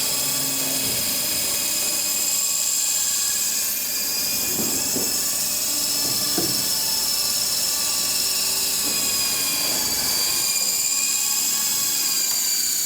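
Double Horse 9053 RC helicopter flying: its electric rotor motors give a steady, high-pitched whine that wavers slightly in pitch and dips a little near the end.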